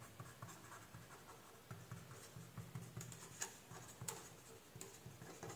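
Faint scratching of a ballpoint pen writing on a sheet of paper, in short strokes with a few light ticks.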